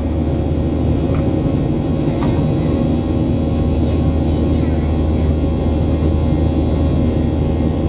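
Steady cabin drone of a Boeing 737-800 in flight, heard from inside the cabin: the jet engines and rushing air make an even noise with a low hum and a few constant tones over it.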